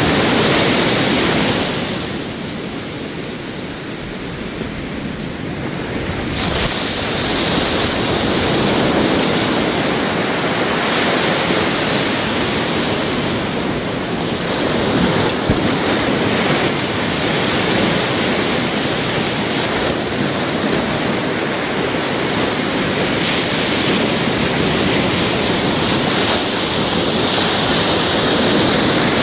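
Ocean surf breaking and washing up the shore in a continuous rush, with a quieter lull a couple of seconds in before the next waves build again and surge at intervals.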